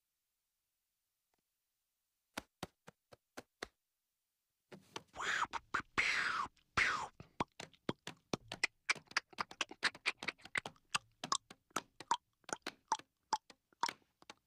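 A voice making mouth clicks and pops: a few single clicks at first, then a few breathy falling whoosh sounds, then a long quick run of tongue clicks and pops, some with a short hollow tone.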